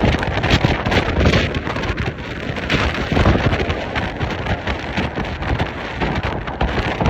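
Strong gusty wind buffeting the microphone, a loud rough rumble that surges and eases in irregular gusts.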